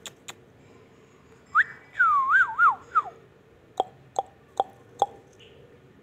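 A clear whistle wavering up and down for about a second and a half, then four short, sharp clicks evenly spaced, all aimed at a ringneck parakeet.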